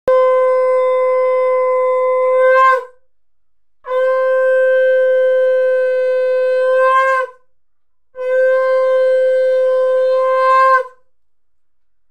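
Conch shell (shankha) blown in three long, steady blasts of about three seconds each, with short pauses between, each blast ending in a brief upturn in pitch.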